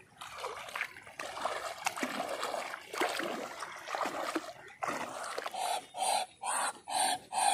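Wading through shallow flooded paddy-field water, with small splashes and trickling at each step. About five seconds in, a regular run of breathy huffs starts, two or three a second.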